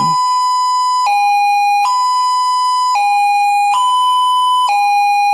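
London police siren sounding the two-tone hi-lo pattern: a higher and a lower note switching back and forth about once a second, steady and loud.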